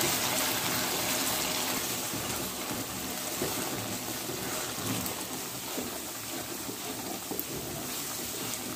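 Hot sugar syrup and ghee sizzling and bubbling in a pot as soaked semolina is stirred into it with a wooden spoon. A steady hiss that slowly eases, with a few light taps.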